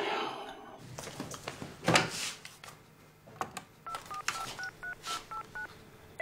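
Push-button landline telephone keypad being dialled: about nine short two-tone key beeps in quick succession in the second half. Before that come a few knocks and rustles, the loudest about two seconds in.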